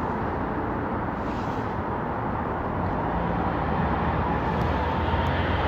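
A vehicle engine running steadily amid traffic noise, its low hum growing a little louder in the second half.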